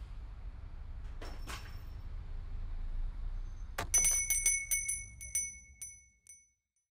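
A small bicycle-style bell rung rapidly, a quick run of strikes with a bright ringing that slows and dies away, over a low rumble that stops near the end.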